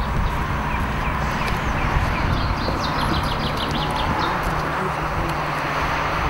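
Small birds chirping: short high chirps scattered throughout, with a quick run of them about halfway through, over a steady low outdoor rumble.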